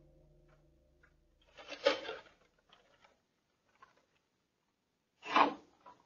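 Two short bursts of rustling and handling noise, about two seconds and five and a half seconds in, with a few faint clicks between, as a person handles a bag right at the door camera. A fading music tone trails off in the first second.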